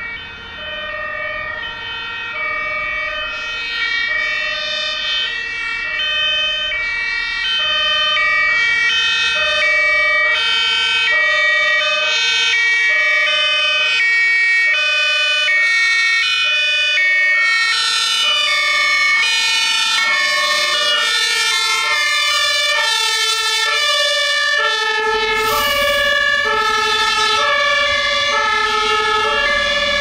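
German fire-engine two-tone siren (Martinhorn) sounding, alternating between a high and a low tone about every half second, with more than one horn overlapping out of step. It grows louder over the first several seconds as the vehicles approach, then holds steady with truck engine rumble beneath it near the end.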